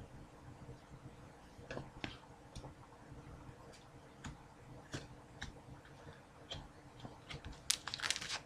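Faint, irregular light clicks of trading cards being flipped through one by one, with a quicker, louder flurry of clicks near the end.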